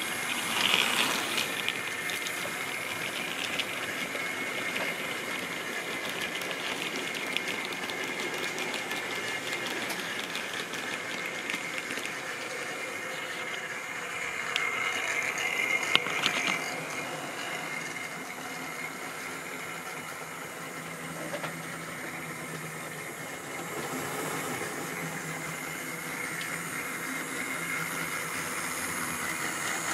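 Model railway locomotives running on the layout: small electric motors whirring and wheels clicking and rattling over the track, steady throughout. A louder spell with a few sharp knocks comes about halfway through.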